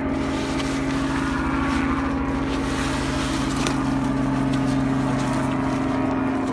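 An engine running steadily at an even pitch, with a few faint handling clicks on top.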